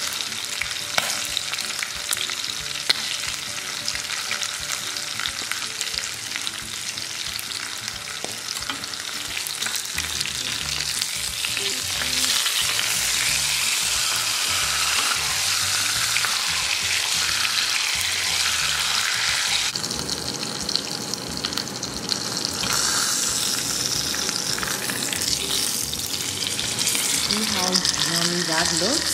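T-bone steak frying in butter and olive oil with garlic cloves in a pan: a steady sizzle full of crackles and spits, getting a little louder about twelve seconds in.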